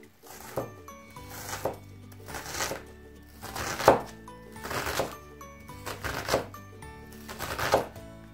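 Onion being chopped with a curved-blade knife on an end-grain wooden cutting board, one stroke about every second. Background music with a melody plays throughout.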